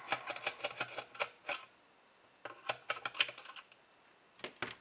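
A small screwdriver backs the last screw out of a Mastech MS6612 light meter's plastic case, making quick little clicks and ticks. They come in two bursts with a pause between, then a couple of sharper clicks near the end.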